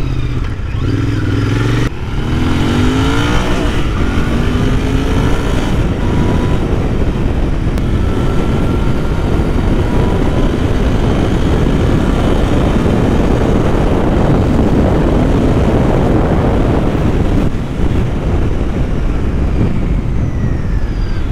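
Royal Enfield Continental GT 650's parallel-twin engine accelerating, its pitch rising through the gears in the first few seconds. Then steady wind rush on the microphone at road speed covers the engine, easing briefly near the end.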